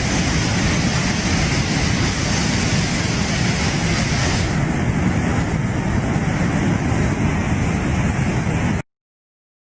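Flash-flood water rushing, a loud steady noise with no distinct events. The higher part of the sound thins out about halfway through, and it cuts off suddenly near the end.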